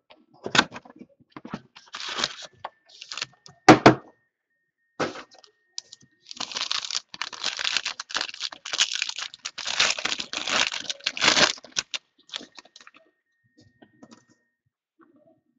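A Panini Playbook football card box being opened, with a few sharp cracks and rips, the loudest about four seconds in. Then a foil card pack is torn open and its wrapper crinkles for about five seconds, followed by a few faint clicks as the cards are handled.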